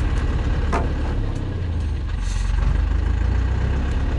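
Heavy truck's diesel engine running with a steady low drone while the loaded truck sits bogged in mud. A short sharp crack comes about a second in and a brief hiss a little after two seconds.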